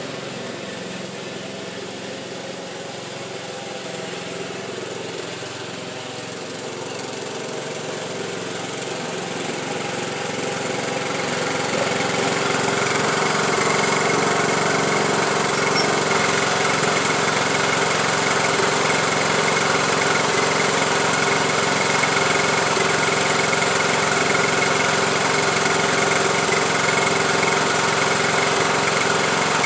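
Craftsman YT3000 riding lawn tractor's engine running steadily as it is driven around. It grows louder about ten seconds in, then holds steady.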